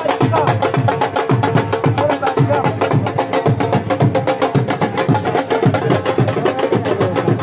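Fast, steady drumming: low drum strokes several times a second with quick, sharper strokes between them, over music.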